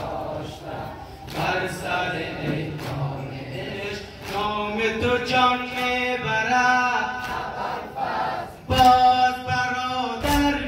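Male voices singing a Persian-language noha, a mournful Muharram lament for Abbas (Abolfazl), with the reciter's held, wavering lines and the gathered men chanting along. A few sharp thuds come near the end.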